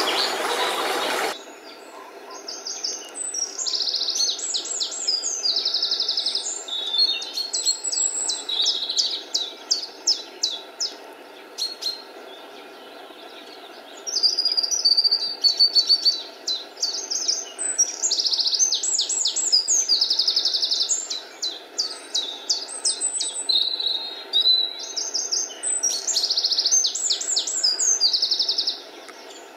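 Spring dawn chorus: several songbirds singing at once, with rapid trilled and chirping phrases following one another over a faint steady hiss. A loud rush of brook water cuts off suddenly about a second in.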